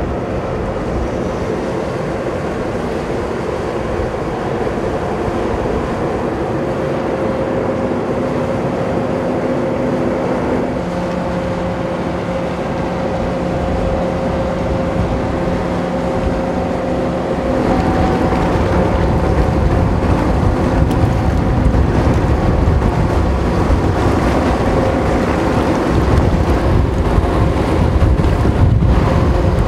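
Ro-ro passenger ferry manoeuvring to berth: its engines run with a steady hum over the rush of water churned up by its propellers. About two-thirds of the way through, the sound grows louder and rougher as the ship works harder.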